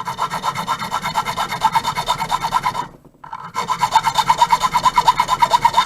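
A hand file rasping quickly back and forth on a metal key blank, in two bursts of rapid strokes with a short pause between, deepening the cuts for pins 1 and 2.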